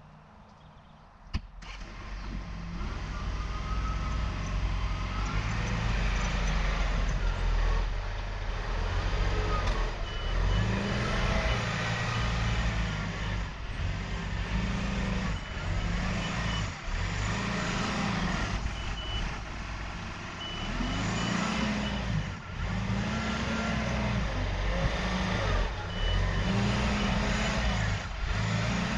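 Diesel engine of a John Deere loader tractor working dirt, its revs rising and falling again and again as it drives and pushes soil. A thin high beep sounds on and off several times, and there is one sharp click about a second in.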